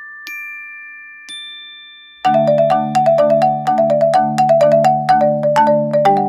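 Background music. Two single struck notes ring out slowly, then about two seconds in a quick, even melody of mallet-like notes starts over held low chords.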